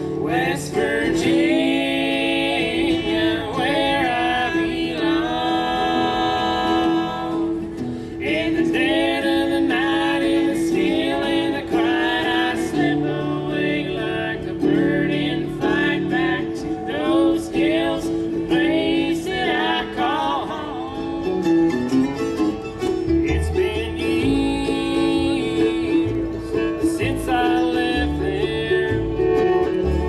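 Live acoustic bluegrass band: several voices singing together over guitar and fiddle, with upright bass; the bass is most prominent in the last third.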